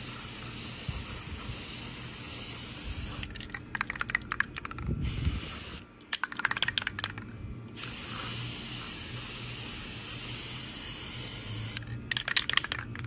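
Aerosol can of matte gray spray paint hissing in long continuous strokes. Three times it is broken by a short clattering rattle: about three seconds in, about six seconds in and near the end, typical of the can being shaken and its mixing ball knocking inside.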